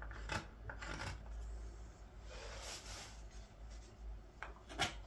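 Carving knife slicing green wood on a ladle: a couple of short shaving cuts, then a longer scraping cut about two and a half seconds in, and more short cuts near the end.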